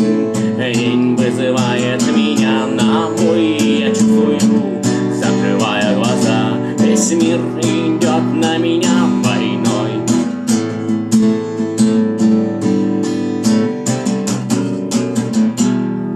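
Acoustic guitar strummed in a steady rhythm of chords, an instrumental closing passage of the song without singing; the strumming stops near the end.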